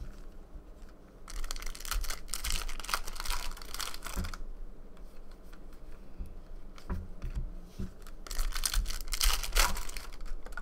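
Foil trading-card pack wrappers crinkling and tearing open in two bursts, about a second in and again near the end, with cards rubbing against each other as they are handled and a few soft knocks on the table.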